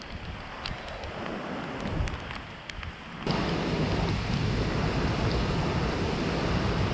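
Wind on the microphone with scattered small ticks, then, about three seconds in, an abrupt switch to a louder, steady hiss of heavy typhoon rain.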